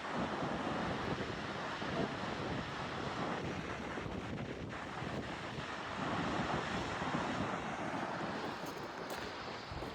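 Sea waves washing on the shore with wind blowing on the microphone, the surf swelling louder early on and again about six seconds in.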